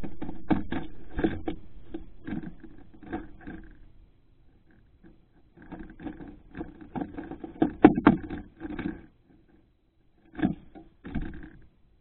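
Tufted titmouse pecking and scrabbling at peanuts in a steel feeder dish right against the microphone: runs of sharp knocks and scrapes that pause about four seconds in, come back in a busy burst, then end with a last couple of knocks.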